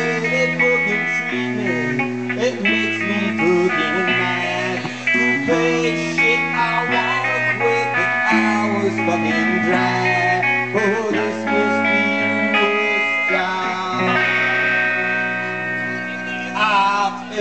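Live band playing amplified electric guitar music, with held chords and notes changing every second or so.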